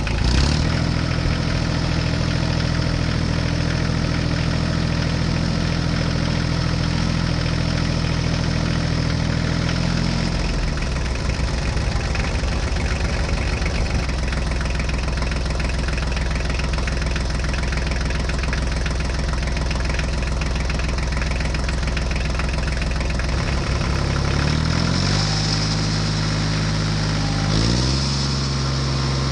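An engine idling steadily. Its note changes about ten seconds in, then steps up and back down twice near the end.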